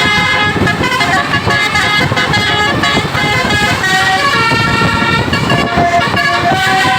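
Bus 'telolet basuri' musical air horn playing a tune: loud horn notes held briefly and stepping from pitch to pitch, over a constant noisy rumble.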